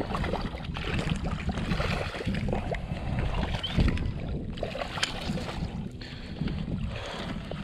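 A hooked bass splashing and thrashing at the surface beside a small boat as it is played in, an irregular run of splashes.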